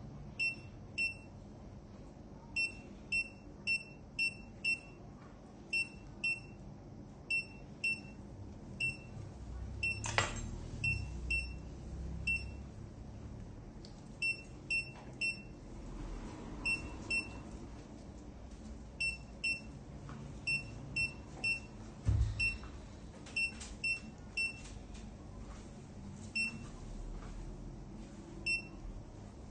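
Anaesthesia patient monitor beeping: short, high electronic beeps repeating irregularly, mostly one or two a second with short gaps. A sharp click about ten seconds in and a low knock about twenty-two seconds in.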